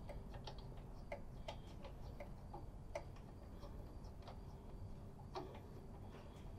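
Faint, irregular small ticks, about two or three a second, as a spark plug is turned out by hand from the V-twin mower engine's cylinder head, its threads clicking as it unscrews.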